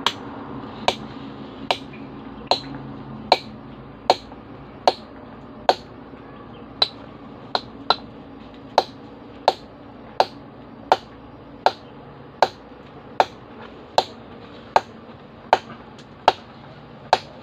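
Steady hammer blows driving a chisel into rock: about twenty sharp strikes, roughly one every three-quarters of a second.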